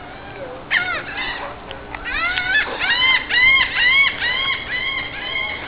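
Marmosets chirping: a quick cluster of short arched chirps about a second in, then from about two seconds in a steady run of chirps, about three a second.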